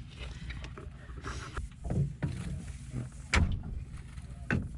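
A few short, sharp knocks and clicks over a steady low hum.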